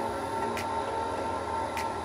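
Inverter-driven motor of a top-discharge basket centrifuge slowing down, its drive output frequency falling through about 5 Hz: a steady high whine over a low mechanical rumble, with a short tick about every 1.2 seconds.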